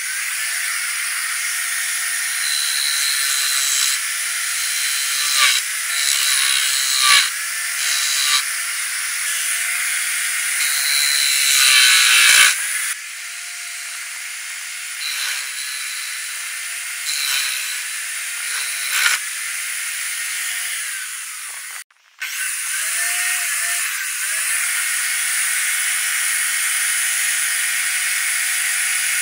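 An electric drill used as a makeshift wood lathe runs steadily with a whine, spinning a small wooden wheel. Through the first half, a hand chisel cutting grooves into the turning wheel gives louder scraping bursts. After a brief cut-out about two-thirds of the way through, the drill runs on steadily while sandpaper is held to the wheel.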